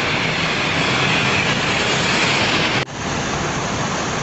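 Bus running at close range: a steady rushing noise of engine and road, broken by a brief dropout about three seconds in.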